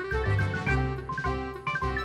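Upbeat background music with a steady beat and bright melodic notes.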